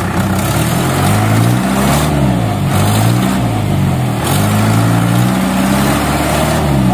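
Truck engine revving up and down in repeated surges, its pitch rising and falling about every second. The truck is stuck with a rear wheel sunk in wet mud and is being driven to get it out.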